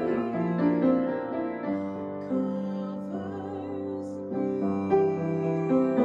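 Upright piano playing a slow hymn in sustained chords, with a woman singing along; in the middle she holds one long note with vibrato.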